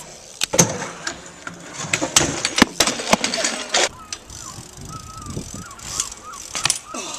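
BMX bike ridden on skatepark asphalt: tyres rolling, with a string of sharp clacks and knocks as the wheels land and the bike strikes the ground, thickest in the first few seconds and again about six seconds in.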